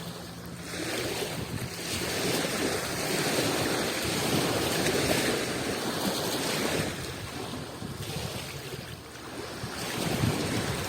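Adriatic Sea waves washing in: one swell builds about a second in and holds for several seconds, eases off, then another rises near the end.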